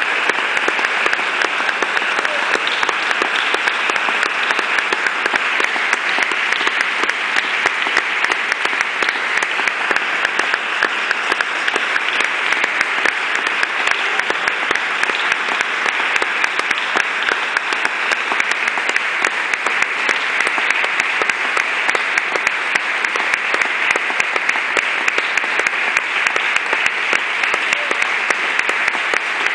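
Audience applauding steadily after a performance: a dense, unbroken wash of many hands clapping.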